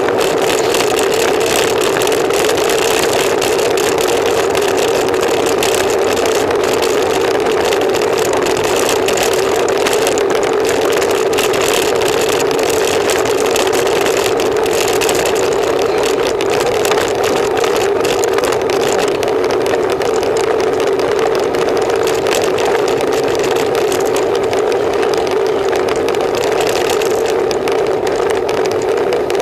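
Steady rush of wind and road noise on a camera riding with a road bicycle in a race, with a constant hum running through it.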